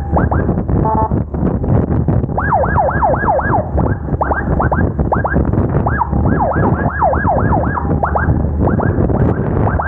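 Electronic emergency siren sounding in rapid falling sweeps, several a second, with a short steady tone about a second in, over a steady low rumble from the moving motorcycle.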